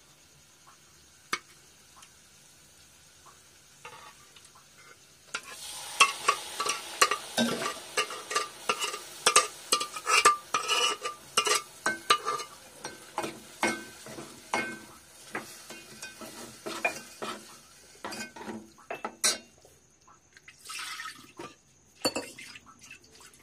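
Metal ladle scraping and clinking against metal cooking vessels as cooked black bean dal is scooped into a pot of fried masala and stirred, with a sizzle as the wet beans meet the hot oil. It starts about five seconds in and thins out to a few scrapes near the end.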